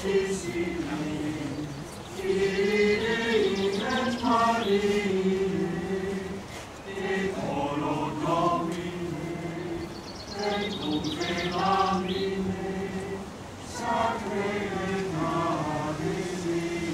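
Choir singing a slow hymn in long phrases with held notes, pausing briefly between phrases about every three to four seconds.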